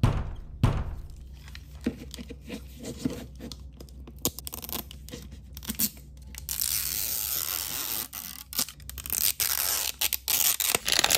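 Plastic wrapper on a toy capsule being picked at with fingernails and torn off. There are scattered crinkles and taps at first, then a long rip about six and a half seconds in, and more ripping and crinkling near the end.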